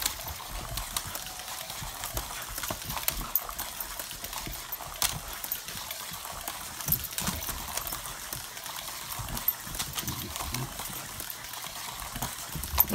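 Feist dog growling in short low bursts while it chases a toy car around a plastic tube race track, with frequent small knocks and clicks as it scrambles about.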